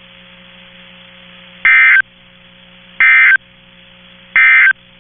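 Emergency Alert System End-of-Message data bursts from a NOAA Weather Radio: three short identical bursts of screechy digital tones, evenly spaced, signalling that the alert broadcast is over. A faint steady hum runs underneath.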